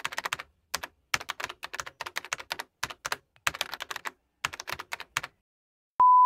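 Computer keyboard typing sound effect: bursts of rapid key clicks with short pauses between them. Near the end a loud, steady, high-pitched beep starts, a test-tone beep of the kind that goes with a TV 'no signal' screen.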